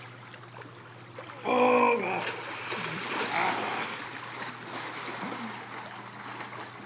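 Water splashing in a swimming pool as a person swims through it. There is a short loud call from a voice about a second and a half in.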